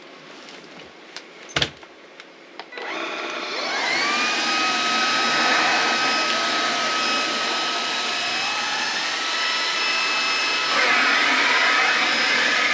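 Cordless stick vacuum's 280 W brushless motor switching on a little under three seconds in, spinning up with a rising whine, then running steadily at full suction with a high-pitched whine and rushing air.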